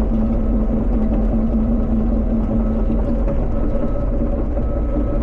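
Cat 320 excavator's diesel engine running at a steady speed, a constant low rumble with a steady hum.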